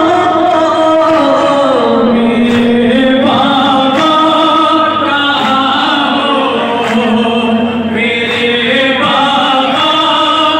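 A noha, a Shia lament in Urdu, chanted unaccompanied by a male lead reciter with a chorus of men singing along in long held notes.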